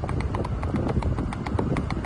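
A horse's hooves clip-clopping on asphalt, a quick, even run of sharp clicks, over a low rumble.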